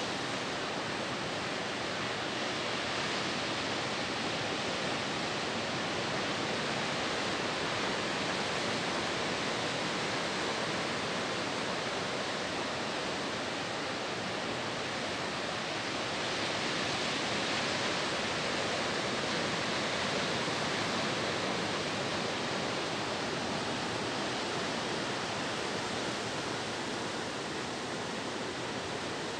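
Sea surf breaking and washing over a rocky shore: a steady rushing noise that swells a little in the second half.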